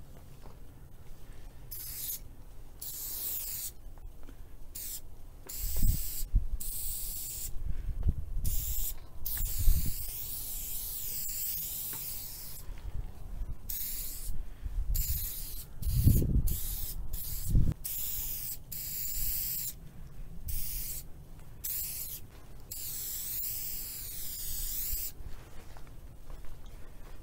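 Aerosol spray-paint can hissing in repeated bursts of varying length, short and long sprays broken by brief pauses. A few dull low thumps come in between, the strongest just past the middle.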